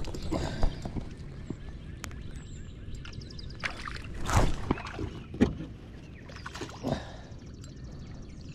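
Handling noises aboard a fishing kayak: scattered knocks and bumps against the hull, the loudest about four and a half and five and a half seconds in, over a steady low rumble.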